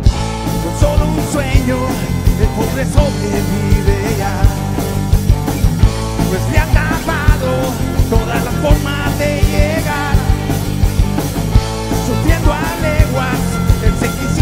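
Rock band playing an instrumental break: electric guitar with bent, wavering notes over a drum kit keeping a steady beat.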